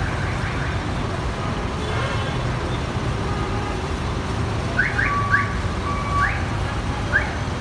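Scania coach's diesel engine idling with a steady low rumble. Over it, from about five seconds in, come several short rising chirps and two brief beeps.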